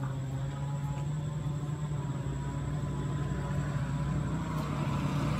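A steady low mechanical hum, like an engine running, with a hiss that grows toward the end.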